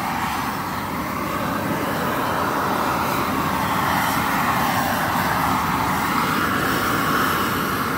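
Gas-fired shrink-wrap heat gun with a wire safety guard, its burner running steadily. It is heating a plastic pallet bag so that it shrinks tight around the base of the pallet.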